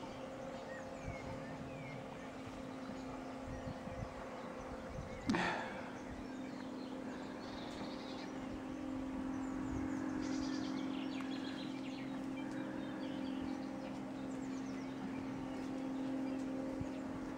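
Outdoor paddock ambience: a steady low hum, small birds chirping now and then, and one sharp knock about five seconds in.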